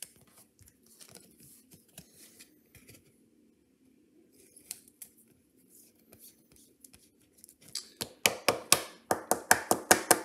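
Soft scratching and rustling of a sleeved baseball card being slid into a rigid plastic top loader. About eight seconds in comes a fast run of sharp clicks, about five a second, as a thumb flicks through the stack of cards in the complete-set box.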